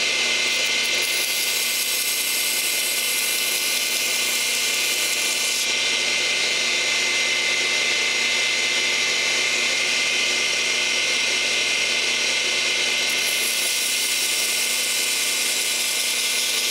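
Small high-speed power tool, like a rotary tool or drill, running steadily with a high whine and a grinding hiss; the hiss shifts a few times as it works against the part.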